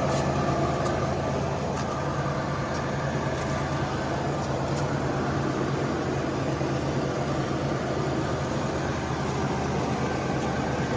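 Motor vehicle engine running at a steady idle, an even low hum with a few faint clicks.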